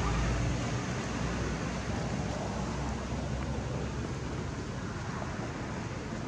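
Steady hiss of outdoor background noise, with a low rumble that fades about a second in.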